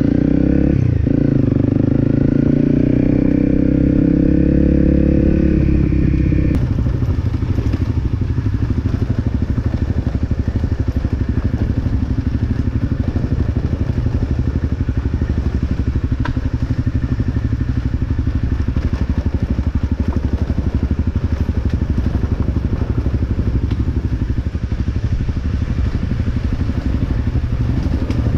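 Honda CRF250L dual-sport motorcycle's single-cylinder engine pulling away and running under way. About six seconds in the sound changes abruptly to a steady, rougher mix of engine, wind and dirt-road riding noise.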